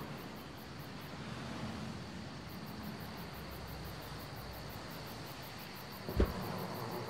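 Crickets chirping in a fast, high-pitched, even rhythm over a steady background hiss. Near the end, a single short loud thump with a falling pitch.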